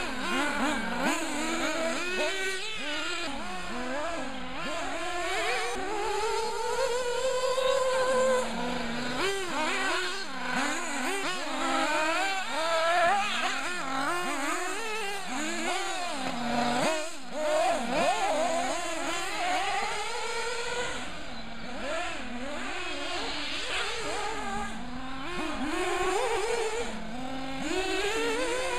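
Small nitro engines of two 1/8-scale RC buggies racing, their pitch rising and falling over and over as the throttle is worked through the corners and straights. The two engines often sound at once, their whines crossing each other.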